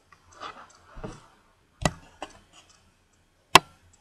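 Three sharp clicks, a clear one about two seconds in, a weaker one just after and the loudest near the end, with faint soft rustling and a dull knock in the first second.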